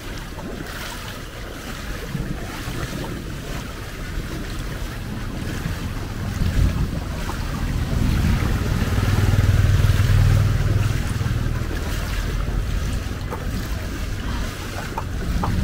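Heavy rain falling in a steady hiss, with a low rumble that swells about halfway through and dies down again.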